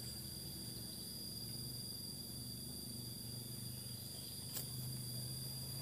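Steady high-pitched drone of insects in a forest chorus, over a faint steady low hum, with a single click about four and a half seconds in.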